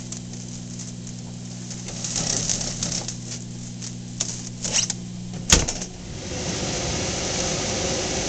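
Galileo Office Minipack shrink wrap machine humming steadily while a bundle wrapped in plastic film is fed in, the film crinkling. A sharp clack about five and a half seconds in as the hood closes, then a steady rush of air that builds while the hood stays down for the seal-and-shrink cycle.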